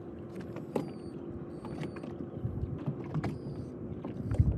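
A steady low hum aboard a small fishing boat, with about five short sharp clicks, each ringing briefly at a high pitch.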